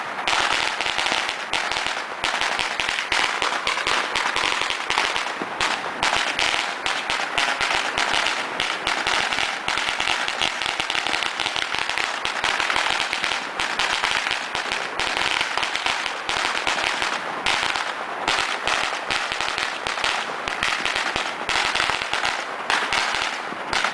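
A pile of firecracker strings going off in a continuous rapid crackle of bangs without a break.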